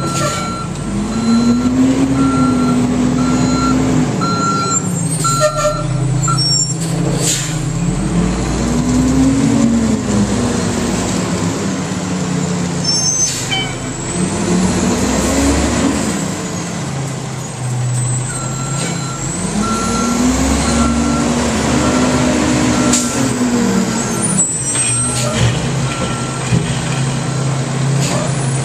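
Automated side-loader garbage truck's diesel engine revving up and down about four times as it works its hydraulic arm, with sharp air-brake hisses and bangs. A backup alarm beeps steadily at the start and again from the middle on.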